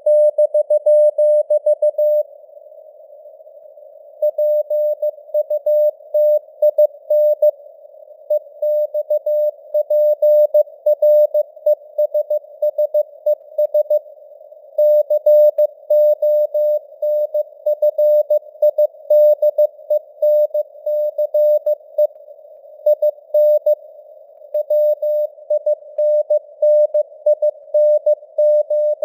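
Morse code (CW) sent at 15 words per minute: a single tone of about 600 Hz keyed on and off in dots and dashes, over a narrow band of simulated radio hiss around the tone. A pause of about two seconds comes about two seconds in, with shorter pauses between words later.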